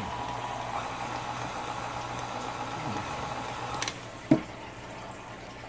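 KitchenAid Artisan stand mixer's motor running steadily, its flat beater turning through flour and wet dough, then switched off with a click just under four seconds in. A single knock follows shortly after.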